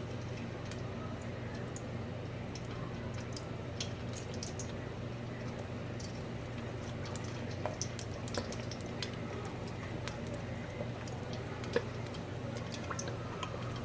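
Meat pies frying in hot grease: a steady sizzle with scattered small pops and crackles over a steady low hum.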